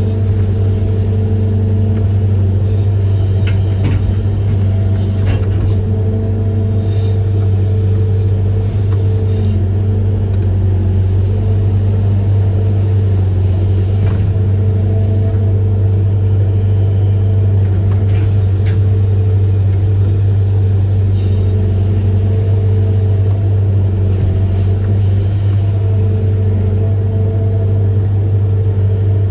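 Amphibious excavator's diesel engine running at a steady, constant pitch, with a few faint clicks or knocks from the machine working.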